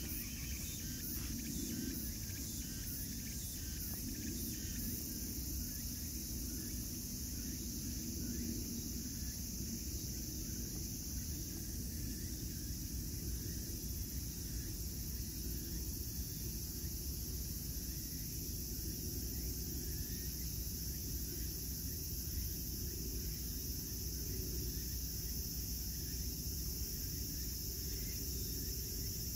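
Steady high-pitched chorus of insects singing, over a low, constant background rumble.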